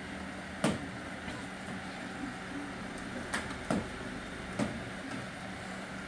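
Roomba robot vacuums running with a steady hum, with four sharp knocks as they bump into each other or obstacles.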